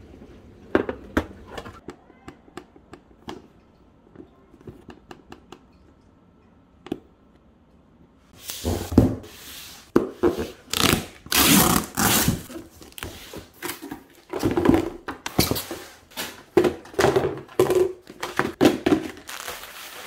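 Light clicks and taps of a plastic food-storage container and lid being handled. From about eight seconds in, a run of loud crinkling and rustling bursts as a cardboard shipping box and bubble-wrapped plastic containers are unpacked.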